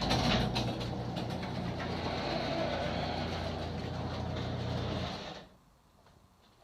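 Electric garage door opener running as the door goes up, a steady motor hum with rattling noise for about five seconds before it stops.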